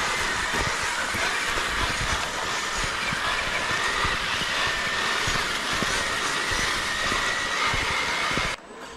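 Radio-controlled scale crawler's electric motor and geartrain whining steadily, with small knocks and rattles from the chassis over rough ground; it cuts off abruptly near the end.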